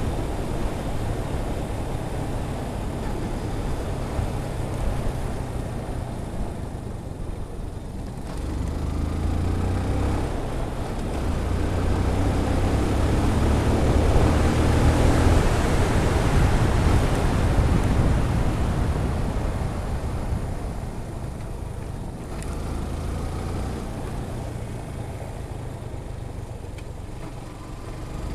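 Wind noise rushing over a helmet-mounted camera's microphone on a moving motorcycle, with the low hum of the Yamaha FZ16's single-cylinder engine underneath. The wind swells for several seconds mid-way as speed builds, then eases off again; the deadcat muffler is not keeping the wind out.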